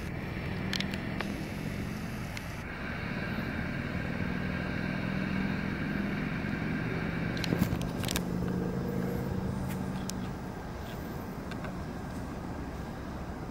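A motor vehicle's engine hum that builds over the first few seconds and drops away about ten seconds in, as if passing on a nearby street, with a few faint clicks midway.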